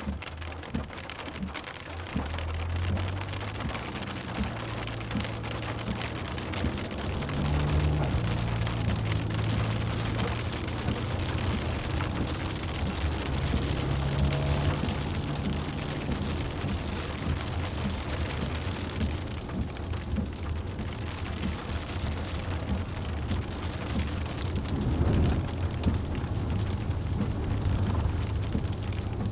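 Steady rain pattering, many small drop ticks over a constant hiss, with a low vehicle drone underneath that shifts in pitch a few times.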